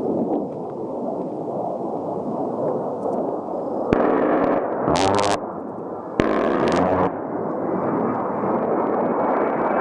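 Two sudden short bursts from an A-10's 30 mm GAU-8 rotary cannon, the first about four seconds in and the second about two seconds later, each under a second and cut off sharply, over a steady low rush. Near the end the whine of jet engines rises.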